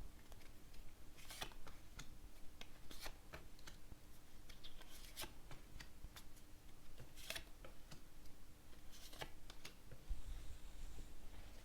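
Fortune-telling cards being shuffled and laid out by hand: faint, irregular snaps and rustles of the cards, over a low steady hum.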